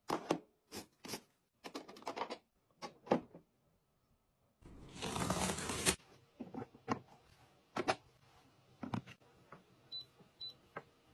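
A run of sharp clicks and knocks from plastic household items being handled, a rush of noise lasting over a second about five seconds in, then more scattered taps. Near the end, two short high electronic beeps as buttons are pressed on an electric food steamer's control panel.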